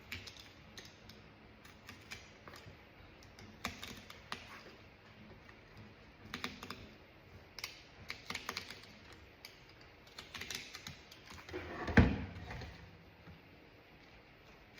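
Razor blade cutting and picking old stitching out of a steering wheel's cover: scattered small clicks and scratchy snips in irregular clusters, with one louder knock about twelve seconds in.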